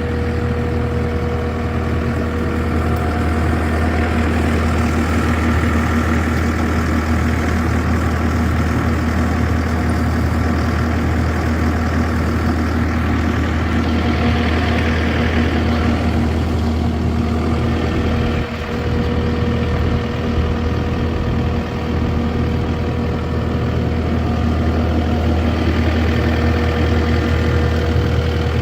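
A heavy engine idling steadily, with an even, unchanging note and two brief dips in level in the second half.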